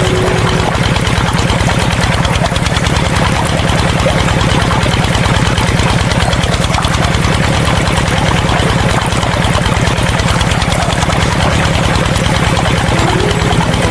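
Engine idling steadily with a rapid, even beat. A short steady tone sounds over it at the very start and again near the end.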